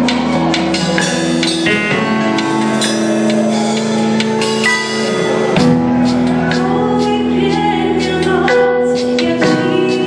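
Live worship band playing a slow song: drum kit with cymbal hits over sustained keyboard chords, with singing into a microphone.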